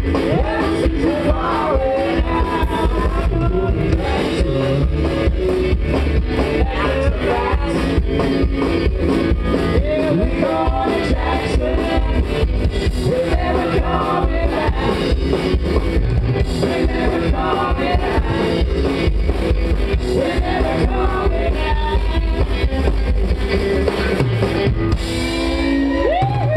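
Live country-rock band playing: a woman singing over double bass, drum kit and electric guitar.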